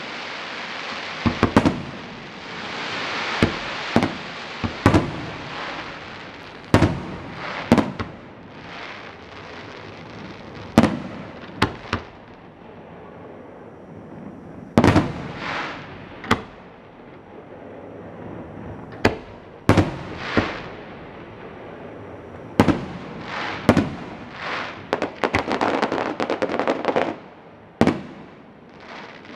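Aerial fireworks shells bursting in an irregular series of sharp bangs, each trailing off in a rolling echo. About three-quarters of the way through comes a run of rapid crackling.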